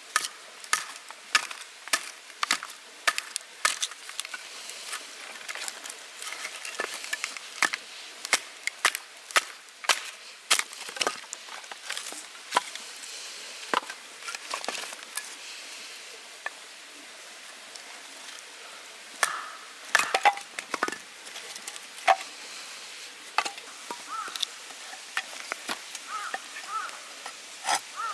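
Firewood being chopped: a run of sharp wooden knocks, about two a second at first, then sparser with a quick cluster about two-thirds of the way through.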